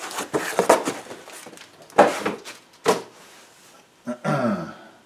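Cardboard shipping box and foam packing tray being handled: a series of knocks and scrapes, the loudest about two seconds in and another just before three seconds.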